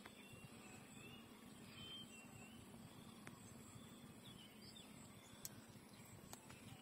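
Near silence: faint background noise with a few faint, short, high chirps that slide in pitch.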